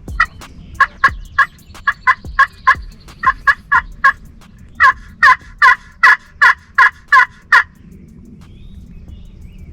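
Loud turkey yelping: two runs of evenly spaced calls, about three a second, the second run louder, stopping about three-quarters of the way through.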